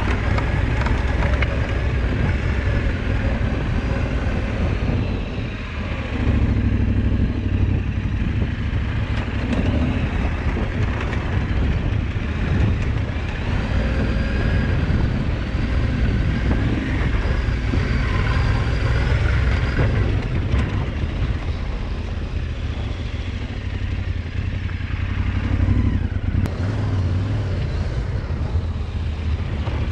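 Off-road motorcycle engine running as it rides along a rutted dirt track, its pitch rising and falling with the throttle over a heavy low rumble.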